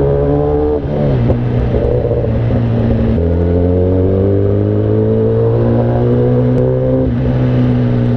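Inline-four 1000cc superbike engine pulling hard through the gears. Its pitch climbs steadily, then drops at upshifts about a second in, about three seconds in and again about seven seconds in.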